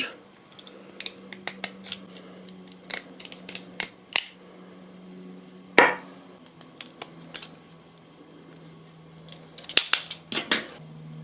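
Utility knife trimming the edges of a 3D-printed PLA part: sharp clicks and short scrapes at irregular intervals, with a cluster of them near the end.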